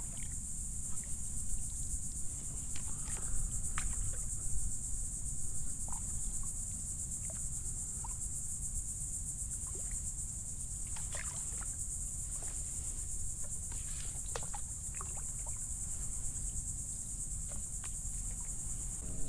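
Steady high-pitched chirring of insects, over a low rumble of wind, with scattered small knocks and drips as a kayak is paddled along.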